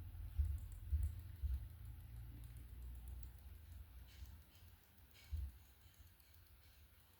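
Pet raccoon grooming itself: faint small licking and nibbling clicks, with a few dull low thumps, three in the first second and a half and one more about five seconds in.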